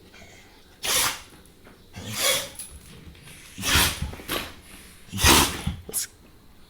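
Dog sneezing four times, each sneeze a sharp, noisy burst about a second and a half apart, in a sneezing fit that the owner puts down to an ant bite or bee sting.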